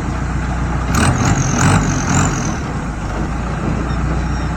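Heavy vehicle engine running steadily with a low hum, likely the dump truck hauling rock. Between about one and two and a half seconds in there are a few knocks and a brief high squeal.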